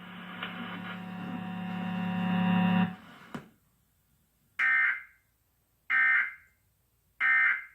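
A steady buzzing hum grows louder and cuts off about three seconds in. Then come three short, evenly spaced screeching data bursts: the Emergency Alert System end-of-message (EOM) tones that close the test.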